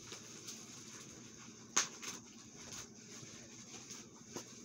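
Faint handling noise: scattered light clicks and rustles, with one sharper click a little under two seconds in.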